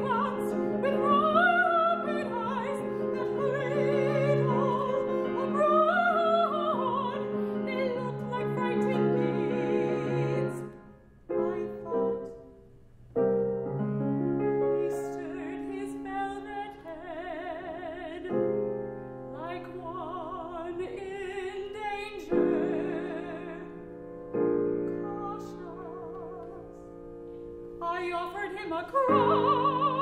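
A woman singing a classical art song in operatic style with vibrato, accompanied by grand piano, with a short hush a little before halfway.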